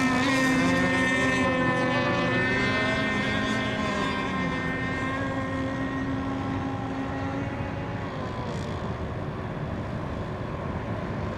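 Several radio-controlled race boat engines running on the water after the finish, a buzzing drone of overlapping pitches that waver early on. One steady tone stops about two-thirds of the way through and the whole sound slowly fades.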